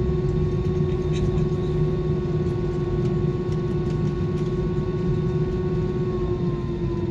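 Steady hum and rumble of an airliner cabin after landing, from the jet engines and cabin air systems; the pitch of the hum drops slightly near the end.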